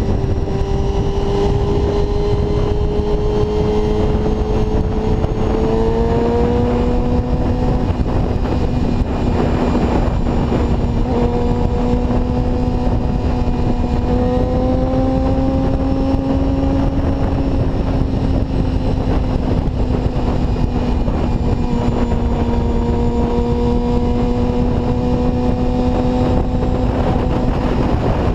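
1992 Honda CBR250RR's inline-four engine running steadily at high revs through a Musarri aftermarket exhaust while cruising, the pitch rising slightly about six seconds in and easing down again near eighteen seconds, under a constant rush of wind noise.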